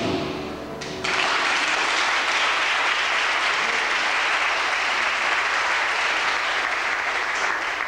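A song ends on a last chord, then about a second in an audience breaks into steady applause that starts to fade near the end.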